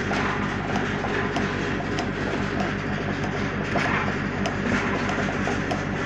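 A trawler's diesel engine running steadily, with a constant low hum and a rattling clatter of many small irregular ticks over it.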